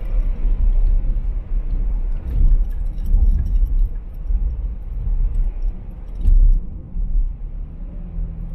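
A car driving along a road: a steady low rumble of road and engine noise, with a few sharp knocks or rattles, most near the middle and one about six seconds in.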